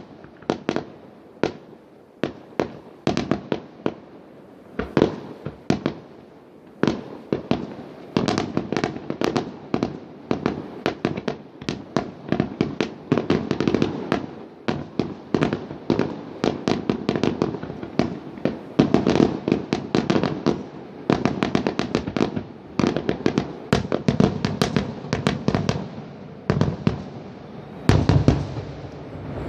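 Fireworks going off: a long series of sharp bangs and cracks. They come spaced out at first, then from about eight seconds in in a dense, almost unbroken barrage.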